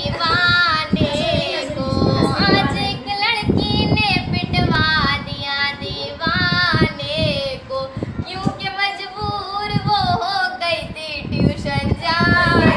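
A young girl singing in a high voice, her notes wavering and sliding through ornamented phrases.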